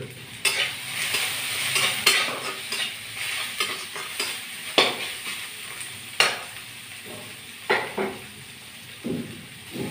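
Shredded bamboo shoot and onion frying in oil in a metal kadai, with a steady sizzle. A spatula stirs and scrapes against the pan every second or two with sharp clacks.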